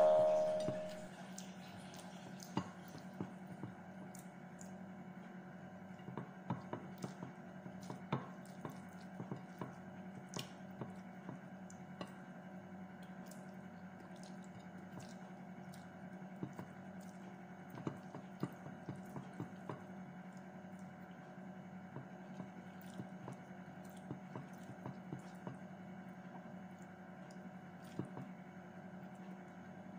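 Mukbang eating sounds close to the microphone: soft, wet chewing and mouth noises with scattered small clicks and ticks, over a steady low hum. A ringing tone fades out in the first second.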